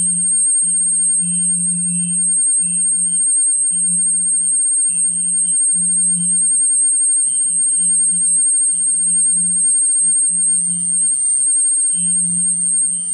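A steady high-pitched electronic whine, with a low electronic hum under it that keeps cutting in and out at an uneven rhythm.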